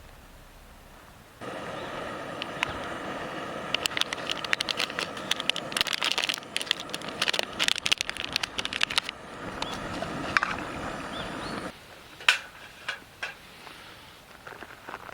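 Wood campfire crackling and popping: dense sharp snaps over a steady hiss that start suddenly about a second and a half in and cut off abruptly near the end, followed by a few scattered pops.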